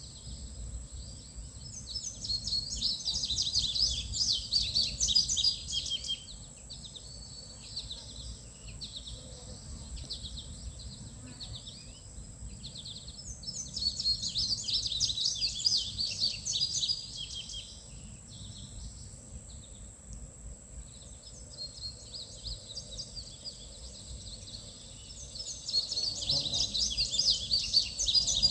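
A songbird singing in three bouts of about four seconds each: quick, high chirping notes. A steady high-pitched tone runs underneath.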